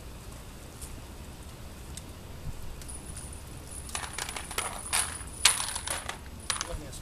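Metal cartridges clinking and ringing as they are handled and loaded into the guns, a scatter of sharp clinks starting about four seconds in.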